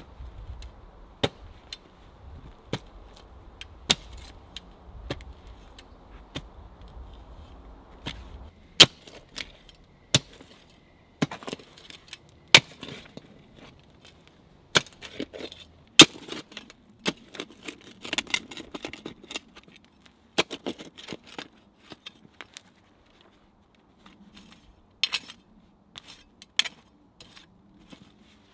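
Folding shovel digging into soil: sharp, irregular strikes of the steel blade with gritty scrapes of earth. The strikes come about once a second and a half at first, then thicker and faster from about a third of the way in.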